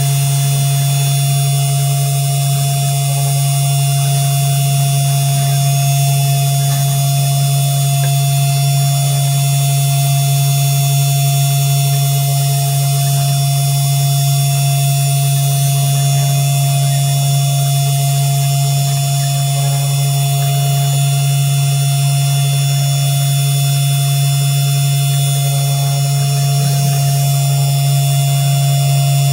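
Mini CNC 3018 Pro running an engraving job: its DC spindle motor hums at a steady, unchanging pitch while the bit carves lettering into soft modelling clay.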